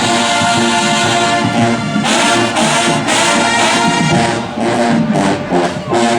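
Marching band brass, led by trombones and trumpets, playing loud held chords, then breaking into short, punchy stabs at about three a second near the end.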